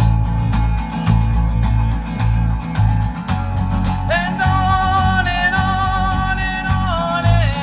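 Live acoustic guitar song with a steady low beat. About four seconds in, a voice comes in on a long held wordless note with vibrato, sliding down near the end.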